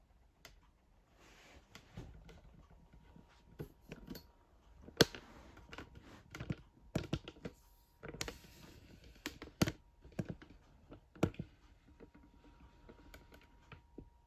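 Irregular clicking and clacking of K'nex plastic parts as the Loop-O-Plane model is shown, with a few sharp clacks standing out and a faint steady hum in the second half.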